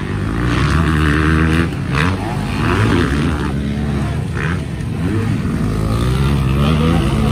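Several motocross dirt bikes revving hard as they ride past one after another, their engine pitch climbing and dropping with throttle and gear changes and overlapping as one bike follows another.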